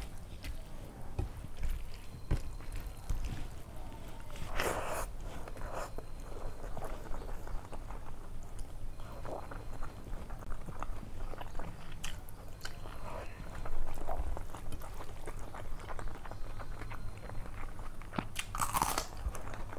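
Close-up eating sounds of rice, dal and curry eaten by hand: fingers mixing the wet rice, chewing and lip smacks. Louder bites or smacks come about five seconds in and again near the end.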